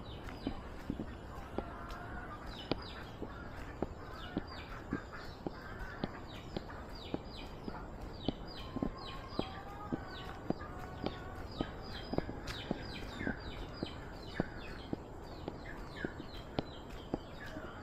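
Footsteps at a walking pace, about two a second, with many birds calling around them in repeated short, falling chirps.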